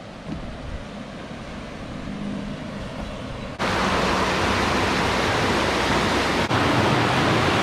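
Water rushing over a low concrete dam into white water: a steady, loud rush that starts abruptly a little over halfway in. Before that there is a fainter, steady rush.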